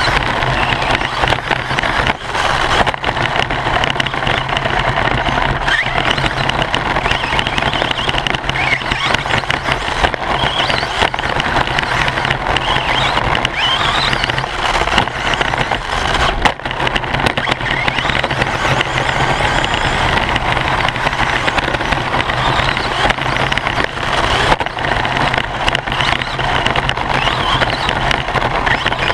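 Onboard sound of an Associated radio-controlled short-course buggy racing on a dirt track, heard from a camera inside its body: motor and drivetrain whine rising and falling with speed over steady tyre and chassis noise.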